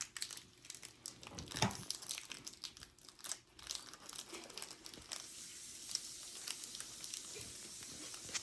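Pokémon booster pack's foil wrapper crinkling and tearing as it is opened by hand, with irregular crackles, busiest in the first half.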